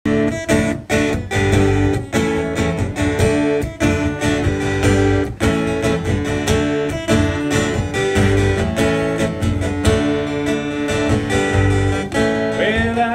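Live acoustic guitar strumming a steady country-style song intro. A singer's voice comes in near the end.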